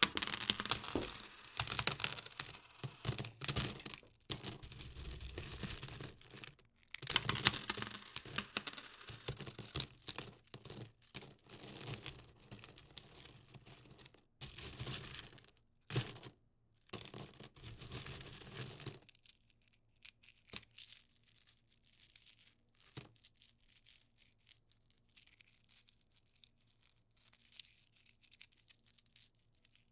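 Metal coins clinking and jingling against one another, dense and busy for about the first two-thirds with a few short breaks, then dropping to faint, scattered clinks.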